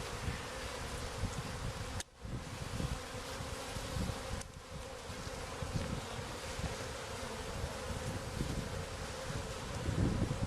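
A swarm of honeybees buzzing as a steady, massed hum, with low irregular rumble underneath. The sound drops out for a moment about two seconds in.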